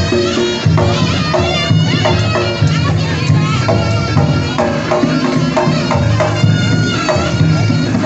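Jaranan ensemble music: a shrill slompret (Javanese double-reed shawm) plays a bending, continuous melody over a steady repeating beat of drums and gongs.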